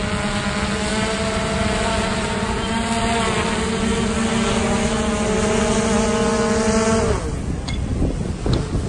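Multirotor fishing drone (Gannet Pro+) hovering and climbing with a 5 kg load slung beneath it, its propellers giving a loud, steady multi-tone hum that shifts pitch slightly about two seconds in. About seven seconds in the hum dips and cuts off, leaving wind rumbling on the microphone.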